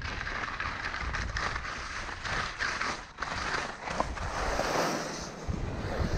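Skis sliding and scraping over firm, tracked piste snow during a descent: a steady hiss with rougher rasps as the edges bite in the turns. Wind buffets the action camera's microphone underneath, easing off for a moment about three-quarters of the way through.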